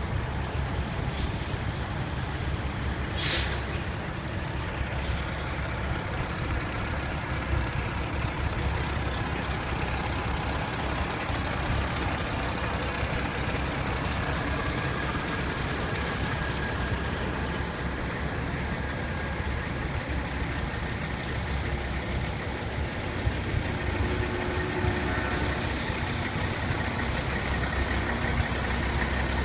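Diesel semi-truck engines running as a line of tractor-trailers pulls away at low speed. There is a short, sharp air-brake hiss about three seconds in and a couple of fainter hisses around one and five seconds.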